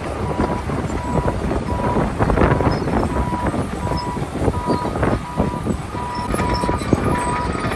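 Strong wind buffeting the microphone, with a heavy-equipment backup alarm beeping steadily about twice a second over it. A second, higher steady tone joins about halfway through.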